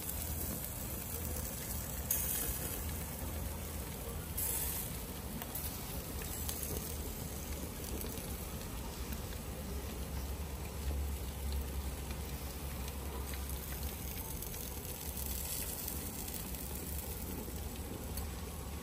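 Pork steaks and button mushrooms sizzling on a grill, a steady faint crackle, with a low rumble underneath.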